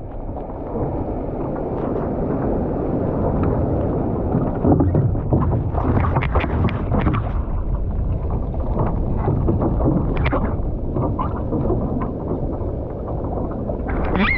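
Wind rumbling on the microphone over water sloshing around a one-person outrigger canoe, with scattered splashes from the paddle as it is paddled through chop.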